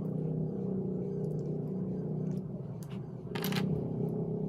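Sikad-sikad (jumping snail) shells clicking and scraping as fingers pick the meat out of them, over a steady low hum. A short, louder scrape comes about three and a half seconds in.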